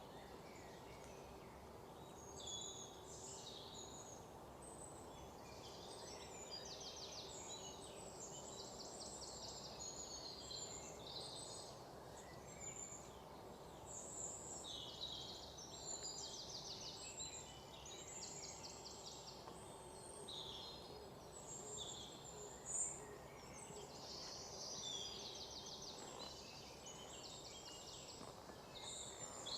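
Forest birds chirping and trilling, many high calls overlapping, some as fast repeated trills, over a faint steady low rush. A single sharp click about 23 seconds in.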